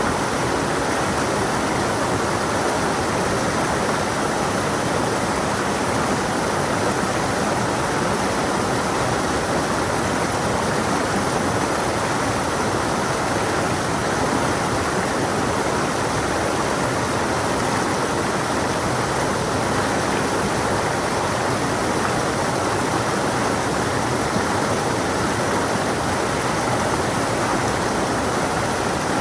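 A stream of water rushing over rocks, a steady, even flow.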